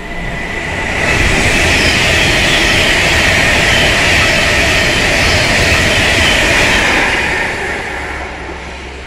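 A train passing through at speed on a nearby track: loud wheel-on-rail and air noise that swells about a second in, holds steady for about six seconds, then fades away.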